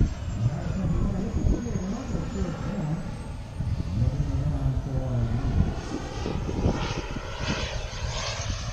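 Engine of an Elite Aerosports Havoc radio-controlled aerobatic model plane in flight, its pitch wavering up and down as the throttle and the plane's distance change.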